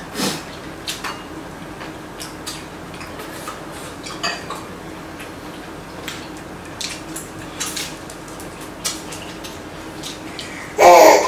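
Chopsticks and spoons clicking and scraping against bowls and a pot during a meal, as scattered light clicks. A brief loud burst cuts in near the end.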